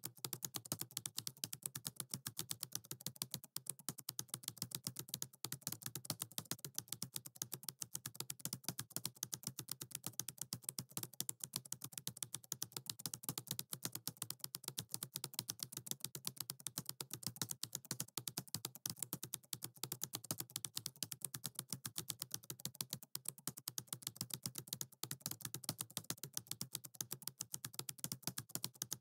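Keyboard typing: a fast, steady, unbroken stream of key clicks.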